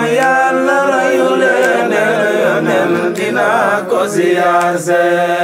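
Devotional song: a voice chanting long, ornamented held notes that waver and glide between pitches.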